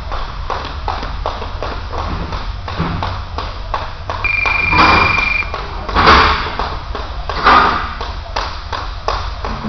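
Skipping rope and feet tapping on a gym floor in a steady rhythm, about two to three taps a second. A single electronic beep is held for about a second roughly four seconds in.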